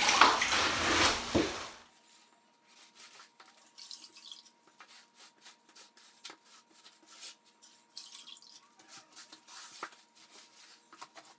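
Wet sponge wrung out over a bucket of water, water splashing and running back into the bucket for about the first two seconds. Then faint light dabs and scuffs as the damp sponge is wiped over the plywood subfloor to wet it.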